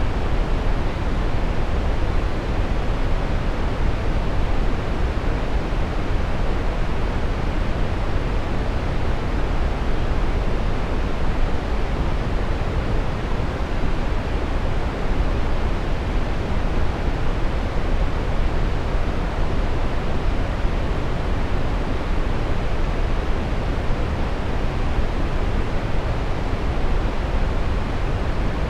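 Steady brown noise: a continuous, even rushing hiss weighted toward the low end, with no change over time.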